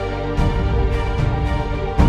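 Background music: sustained chords over a beat, the harmony changing about half a second in.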